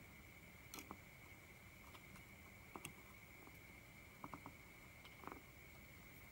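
Near silence, with a faint steady high-pitched whine and a handful of small, light clicks: a pair about a second in, one near three seconds, a quick cluster of three past four seconds, and one more past five.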